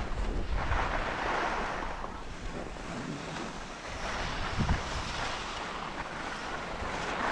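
Skis hissing and scraping over packed snow, swelling and easing in waves, with wind buffeting the microphone and a brief low thump about two-thirds of the way through.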